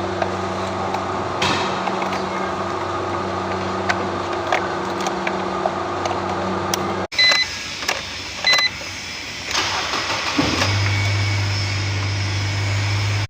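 A steady mechanical hum that cuts off abruptly about seven seconds in, followed by two short electronic beeps from the car about a second apart. Near the end a steady low hum sets in.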